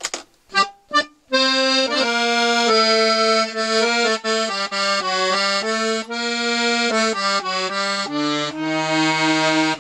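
Galanti piano accordion played on its master register (low reed plus two middle reeds), sounding a run of held chords that change every half second or so. The reeds are freshly tuned, with the two middle reeds set to beat against each other for the tremolo. A few short clicks come before the first chord, about a second in.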